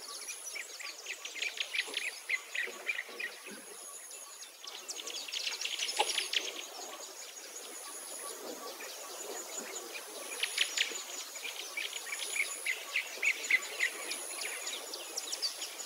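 Birds chirping in clusters of quick, high notes, with a thin, very high insect trill that comes and goes in stretches of a second or two.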